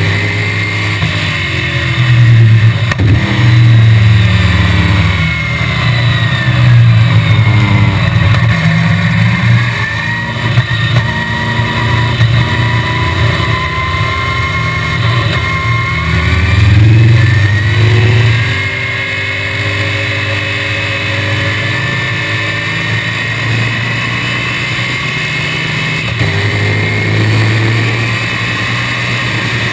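1965 BTM Cheetah roadster's small-block Chevrolet V8 at racing speed, heard from the cockpit: the engine note climbs and drops again and again as the car accelerates up through the gears and lifts off for corners.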